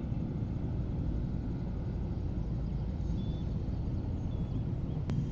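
Steady low rumble of distant road traffic, with a few faint, short bird chirps in the middle and a sharp click near the end.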